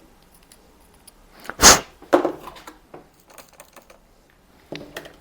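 Hands working floor-pump head parts: one loud brief scraping rush about a second and a half in, then a scatter of small clicks and knocks, and a few more near the end.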